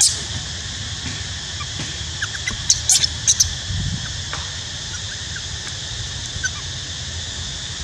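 Baby long-tailed macaque giving short, high-pitched squealing cries, bunched about three seconds in, with a few fainter chirps, over a steady background hiss.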